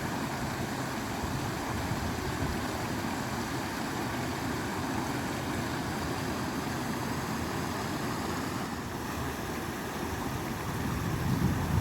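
Steady rush of flowing water, an even noise without breaks.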